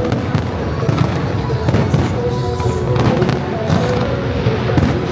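Fireworks bursting in quick succession, many bangs overlapping, with music playing along.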